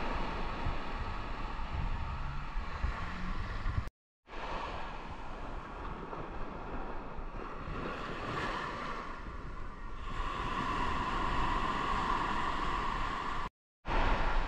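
Small shore-break waves washing up the sand, their foam fizzing over the shallows, with wind buffeting the microphone as a low rumble. The sound cuts out briefly twice, about four seconds in and near the end.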